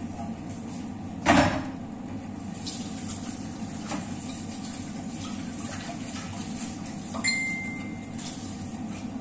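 Kitchen handling noises over a steady low hum: a sharp knock about a second in, a few light clicks, then a click and a short high steady tone near the end.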